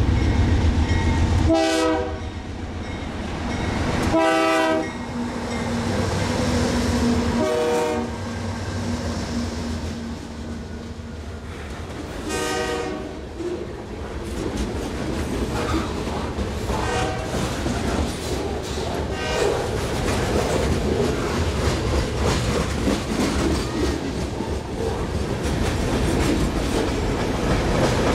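BNSF diesel freight train passing close by: the locomotives go by with a low engine rumble and the horn sounds four blasts in the first half, with fainter ones after. A long string of autorack and hopper cars then rolls past, wheels clicking over the rail joints.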